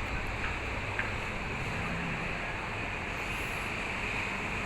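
Steady outdoor wind noise buffeting the microphone, with a couple of faint clicks about half a second and a second in.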